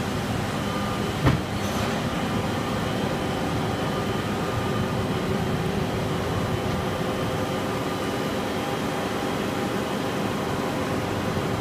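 TOS WD-130 CNC floor-type horizontal boring mill running, a steady mechanical drone with faint steady whines over it, and a single sharp click about a second in.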